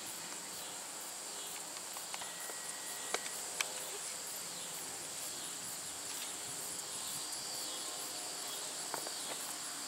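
Insects chirring in a steady, high, evenly pulsing chorus, with two faint sharp clicks about three seconds in.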